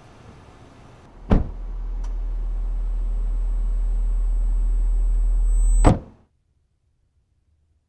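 A sharp thud, then a low drone and a thin high whine swelling steadily for about four seconds, cut off by a loud sharp hit and then silence.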